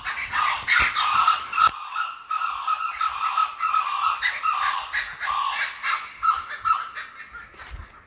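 Kookaburra cackling: a long, rapid run of harsh repeated notes that fades near the end.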